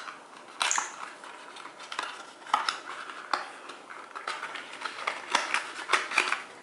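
Small hard plastic pieces being handled: irregular clicks, taps and short rustles as a plastic cube stand and its packaging are picked up and turned over.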